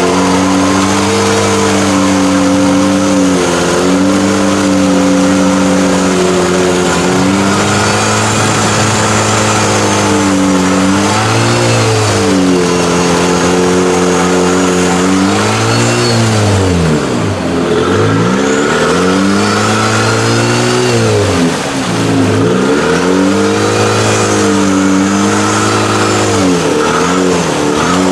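Off-road mud bogging vehicle's engine held at high revs, the revs sagging and climbing back several times, once dropping almost to idle.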